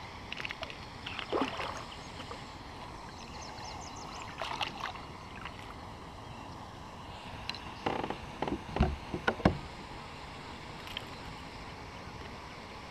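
A small bass splashing at the surface as it is reeled in beside a plastic kayak, then a cluster of sharp knocks and thumps about eight seconds in, the loudest sounds, as the fish is landed.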